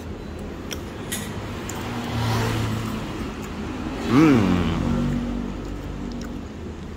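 A passing motor vehicle's engine over a steady low hum, its pitch rising and falling once a little past the middle, with a few light clicks.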